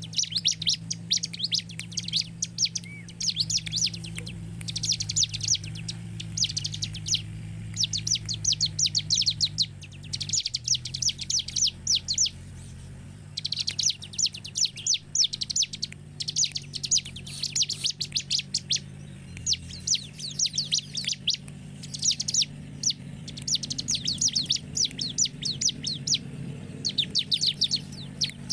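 Bar-winged prinia (ciblek) singing: long phrases of rapid, high, dry chips, each phrase lasting a second or two, repeated with short pauses between them.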